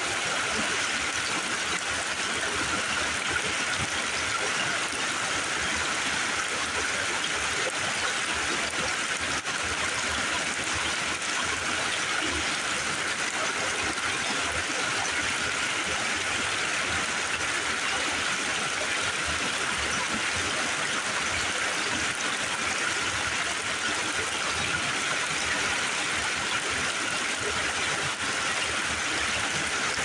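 Small mountain creek tumbling over rocks and little waterfalls: a steady rush and splash of water.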